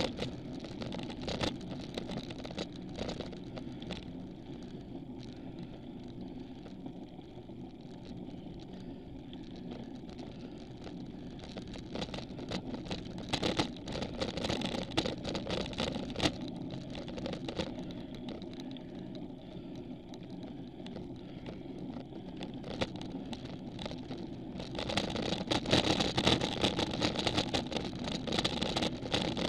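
Steady rumble of tyre and road noise through a camera mounted on a bicycle climbing a steep road, with many small rattling knocks from bumps. It grows louder and rougher near the end.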